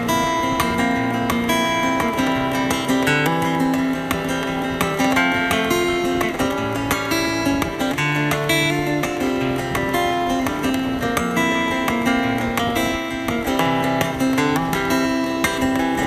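Acoustic guitar strummed steadily in chords: the instrumental introduction of a song, before the vocals come in.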